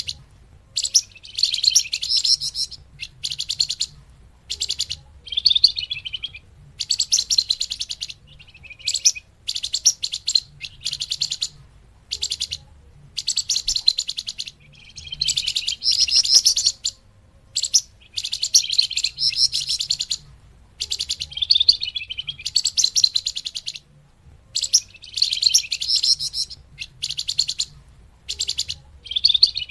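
Bird-lure recording of the bird known in Indonesia as 'flamboyan', singing in repeated phrases of rapid, high-pitched chattering trills. Each phrase lasts about a second and the gaps between them are short.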